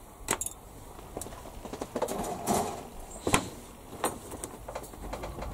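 Side cutters snipping a plastic part off a model-kit sprue: several sharp clicks, the loudest about three seconds in, with the plastic frame rustling between them.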